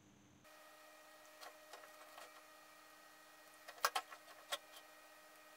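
Light clicks and knocks, with a cluster of sharper knocks about four seconds in, over a steady faint hum that starts about half a second in.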